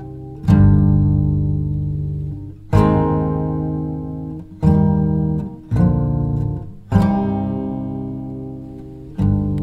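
Background music: an acoustic guitar strumming chords, six strums one to two seconds apart, each left to ring and fade.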